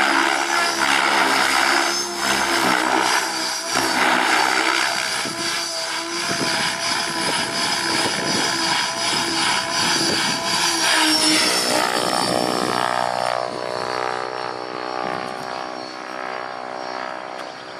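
Mikado LOGO 700 XXTreme electric RC helicopter with a Scorpion brushless motor flying 3D aerobatics: a whine from motor and gears, plus rotor-blade chop that shifts with the manoeuvres. It grows fainter after about twelve seconds as the helicopter climbs away high.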